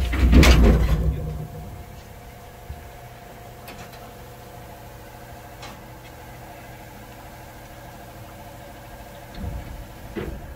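A loud rumbling thud in the first second or so, then a steady mechanical hum from a running machine, holding several even pitches.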